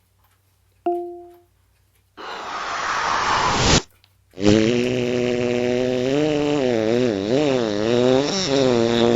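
Fart sound effects played through a smart speaker. A short tone sounds about a second in. Then comes an airy, hissing fart of about a second and a half, then a long pitched fart whose pitch wobbles up and down for about five seconds.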